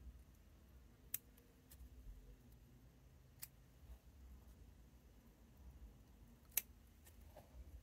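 Bonsai scissors snipping shoots off a small conifer: a few separate, sharp snips spread through near silence, the loudest one a little before the end.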